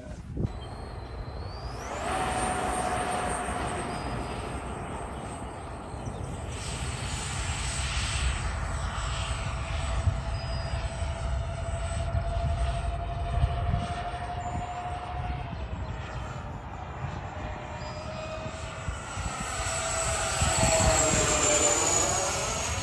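Twin 64 mm electric ducted fans of a Freewing F-14 Tomcat RC jet spool up about two seconds in, then hold a steady high whine as the jet takes off and flies. Near the end the sound swells and the pitch slides down slightly as the jet passes by.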